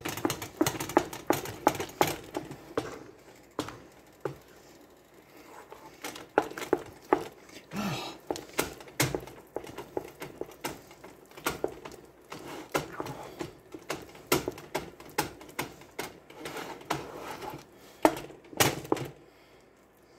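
Wooden spoon knocking and scraping against a stainless steel pot as it beats a thick, sticky egg-and-flour dough: irregular sharp knocks, a few a second, easing off for a few seconds near the start before picking up again.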